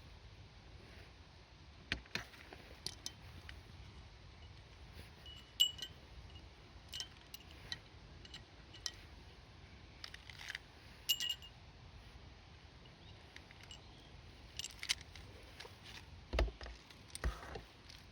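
Scattered light metallic clinks and taps, some ringing briefly, as small metal gear is handled, with two dull thumps near the end.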